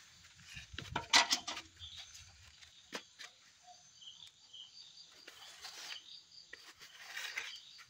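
Crickets chirping steadily, with bursts of rustling and scraping as hands press potting soil around a mango sapling in a pot. The loudest rustle comes about a second in, with softer ones later.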